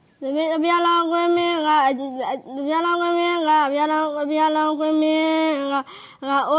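A young boy's voice chanting a Buddhist sermon in the drawn-out, melodic sing-song style of Burmese dhamma preaching. He holds long, level notes, with a short break about two seconds in and another near the end.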